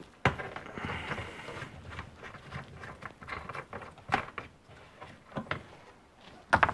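A hand working behind the trunk carpet and plastic trim of a car: carpet rustling, with scattered small knocks and clicks, a few of them sharper near the end.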